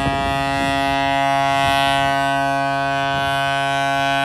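Fireboat's horn sounding one long steady blast, a low note with many overtones. It is one of the three blasts that signal the end of the water display, the all-clear.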